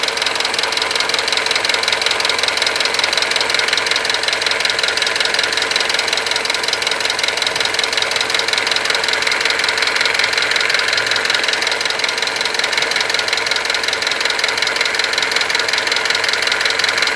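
Mitsubishi 4D56 four-cylinder turbodiesel idling steadily with a fast, even clatter. The owner is hunting a knock in it that goes away when one particular injector is unplugged.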